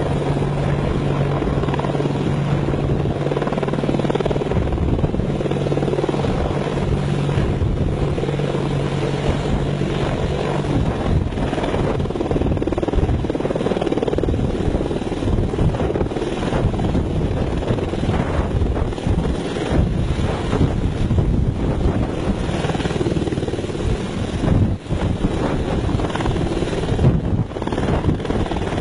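Boeing AH-64E Apache attack helicopter's twin GE T700 turboshaft engines and four-blade main rotor running as it lifts off and hovers low. A steady low hum gives way about eleven seconds in to a rougher, pulsing rotor sound.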